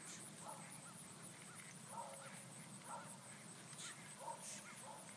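Horse's hooves clip-clopping in a steady, faint rhythm.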